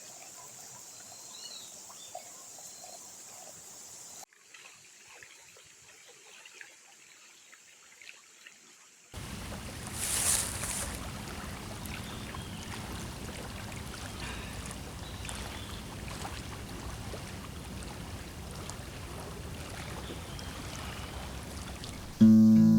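Outdoor nature ambience in a few cuts: faint short chirps over a soft hush, then, from about nine seconds in, a louder steady trickling-water rush.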